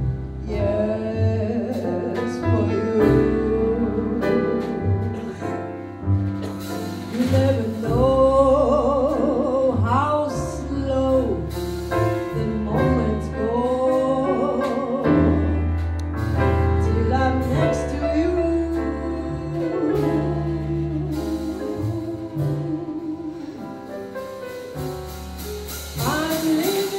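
A woman singing a slow jazz melody with wavering, sliding notes, backed live by a small jazz band with double bass and piano.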